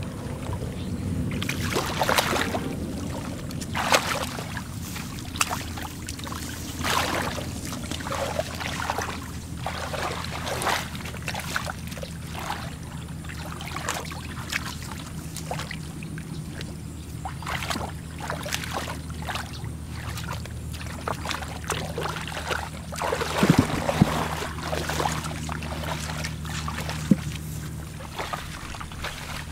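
Hands splashing and sloshing in shallow, muddy field-ditch water while groping for fish, in irregular splashes every second or so, over a steady low hum.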